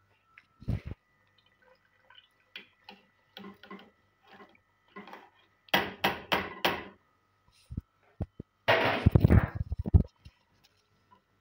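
Kitchen handling noises: a few scattered knocks, then a quick cluster of four sharp clatters, then a burst of rinsed rice and water tipped from a wire-mesh strainer into a pot of tomato broth, splashing briefly near the end. A faint steady high whine runs underneath.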